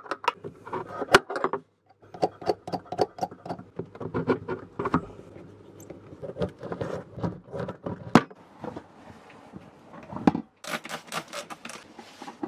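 Irregular metal clicks, taps and scraping of a spanner and tap fittings being handled under a galley sink, with a few sharper knocks and a denser clatter near the end.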